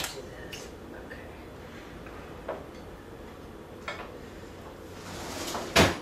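Kitchen handling noises while a serving utensil is fetched: a few light clicks and taps spread through, then one louder knock near the end.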